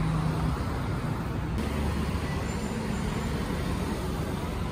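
Steady engine and road noise of a motor vehicle, its low engine hum shifting slightly higher about a second and a half in.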